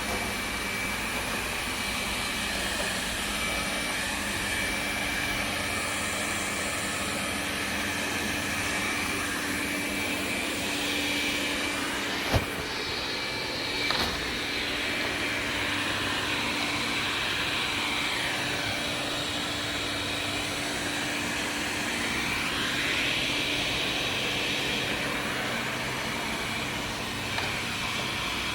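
Xiaomi Mijia 1C robot vacuum running, a steady suction-motor whir with a faint whine that wavers in pitch as it moves about. There is one sharp knock about twelve seconds in.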